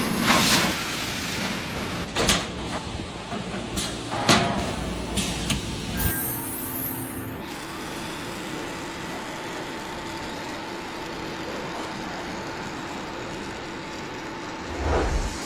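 Straight seam welding machine for round pipe: several short hissing bursts, like air released from pneumatic clamps, in the first six seconds, then a steady machine hum.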